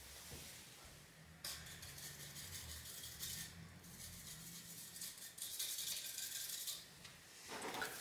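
Faint, rapid scratchy scrubbing in two stretches of a couple of seconds each, starting about a second and a half in and again about four seconds in: stubborn, sticky old thermal paste being scrubbed off a graphics card's GPU die.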